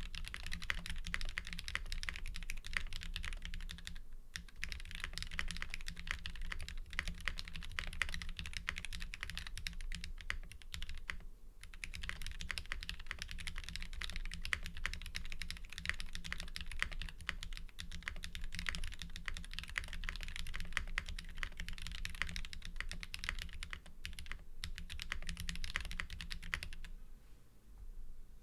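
Steady typing on a 96% top-mount mechanical keyboard (LZ CLSn) with a brass plate, lubed NovelKey Cream linear switches and GMK keycaps. The keystroke clicks run densely, with brief pauses about 4 and 11 seconds in.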